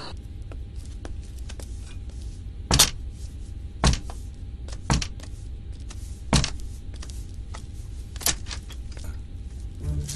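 Five single sharp knocks, irregularly spaced one to two seconds apart, on a front door, over a low steady hum.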